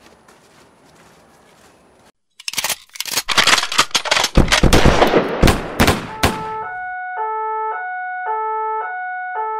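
A loud burst of rapid automatic gunfire, dense and fast for about four seconds, breaks in after a short silence. It gives way to a simple electronic melody of clean beeping tones, the notes stepping up and down in a figure that repeats about twice a second.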